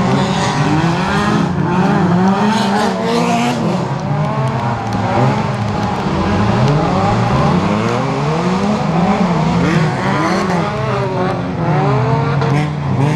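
Several dirt-track racing cars at full throttle, their engines revving up and dropping back again and again as they shift gear, the overlapping engine notes rising and falling.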